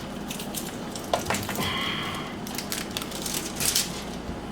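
Crackling, rustling handling noise as silicone self-fusing tape is stretched and wrapped around a plastic drain pipe, with scattered clicks and a brief squeak about two seconds in.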